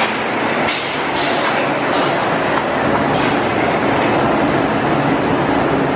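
Haas wafer baking oven running: a steady, dense mechanical clatter and hum from the travelling line, with several short, sharp high bursts in the first few seconds.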